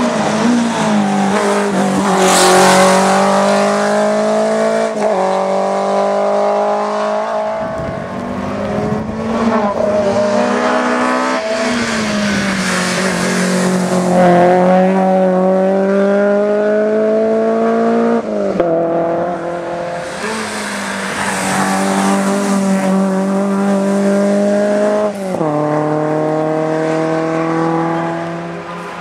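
Race car engine pulling hard up a hill-climb course, its revs climbing and then dropping sharply at each gear change, several times over.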